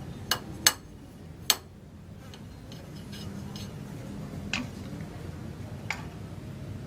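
Five sharp clicks, three close together at the start and two more spaced out later, over a steady low hum.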